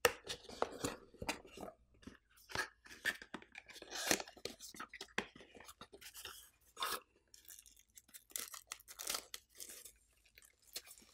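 Paper and plastic packaging rustling and crinkling as a TV remote control is lifted from its box, slid out of a paper sleeve and turned over in its clear plastic film: irregular crackles and small knocks.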